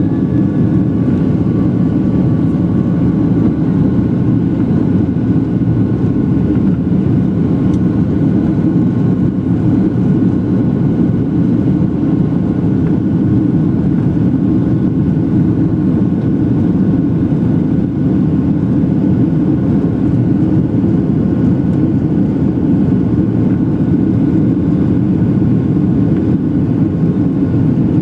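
Boeing 737 cabin noise in flight, heard from a window seat over the wing: a loud, steady, low roar of the jet engines and the airflow past the fuselage.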